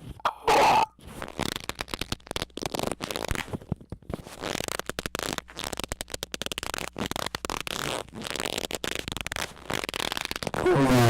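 Squeaking noises: a short loud squeak about half a second in, then a long run of rapid, uneven crackling and clicking, then another loud squeak with a wavering, gliding pitch near the end.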